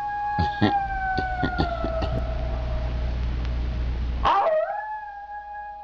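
Two long wolf-like howls, each sweeping up at the start, then held and slowly falling in pitch. The second begins about four seconds in. A low hum under the first howl stops where the second begins.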